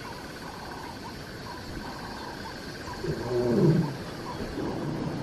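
A lioness calling: one low, moaning call about three seconds in that falls in pitch. Behind it runs a steady chorus of insects.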